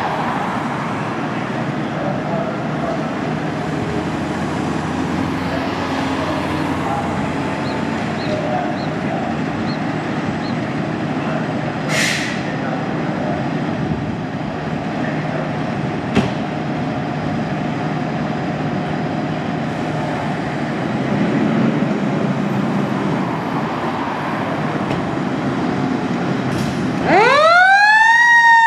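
2014 KME fire engine idling in the station bay with a steady diesel drone, a car passing at first and a brief hiss about halfway. Near the end its siren starts up, rising quickly to a high wail and then slowly falling.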